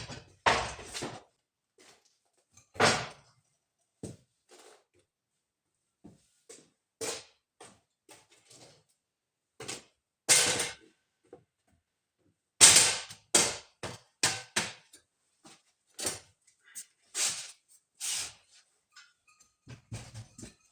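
Irregular clanks and knocks of steel parts being handled and set in place, a couple of dozen separate hits with short pauses between them.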